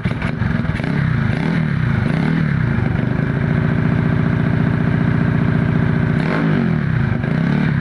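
Bored-up Honda C70 four-stroke single-cylinder engine running on a test ride just after reassembly, the pitch climbing over the first couple of seconds, holding steady, then dropping about six seconds in and rising again.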